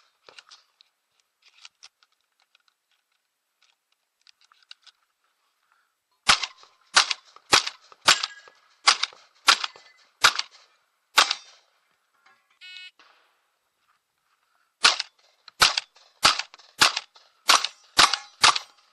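Shotgun fired in rapid strings during a match stage: about eight shots roughly half a second to a second apart, a pause of a few seconds, then about seven more in quicker succession. Faint clicks come in the quiet stretch before the first shot.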